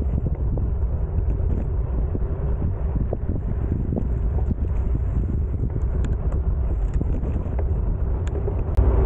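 Wind buffeting the microphone on the move, a steady low rumble with a few faint ticks.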